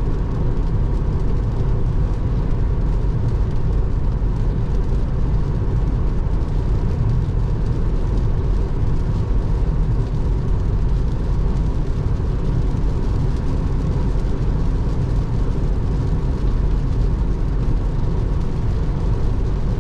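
Steady road and tyre noise of a Tesla Model 3 at highway speed on a rain-soaked road, heard inside the cabin. It is an even low rush with no engine note and no separate events.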